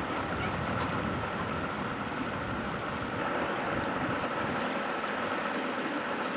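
Motorboat under way: the engine runs steadily, with water rushing past the hull.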